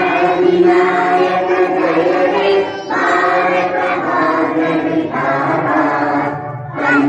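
A large group of schoolchildren singing a school prayer together in unison. They sing in long sustained phrases with brief breaks between them, and a new phrase starts just before the end.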